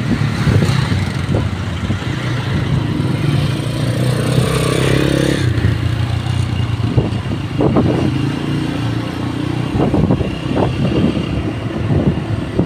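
A motorcycle's engine running steadily while it is ridden along a road. The sound changes about halfway through, and a few short knocks follow in the second half.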